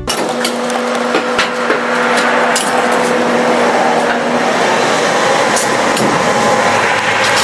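Blacksmith's forge at work: a steady rushing noise with a low hum that stops about halfway through, and scattered light metal clicks and taps.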